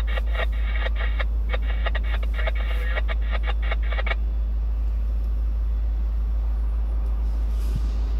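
Steady low rumble heard inside a parked vehicle's cabin, with a thin, tinny sound from a radio speaker that cuts off suddenly about four seconds in.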